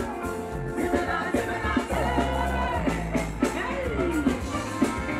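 Live Ghanaian gospel music from a band with a steady bass line, with a woman singing into a microphone over it through the stage speakers; her voice slides up and down in pitch.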